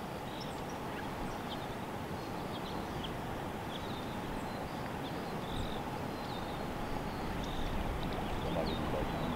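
Wind rumbling steadily on the microphone outdoors, with faint short bird chirps now and then.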